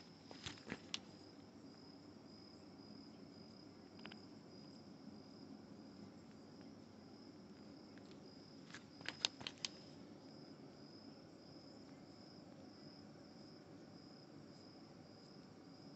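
Crickets trilling faintly and continuously at a high pitch. Two brief clusters of sharp clicks come about half a second in and, louder, about nine seconds in.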